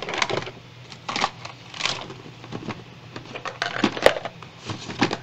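Handling noise: a series of irregular clicks and knocks as small objects are picked up and moved about, with one sharp click about four seconds in. A low steady hum runs underneath.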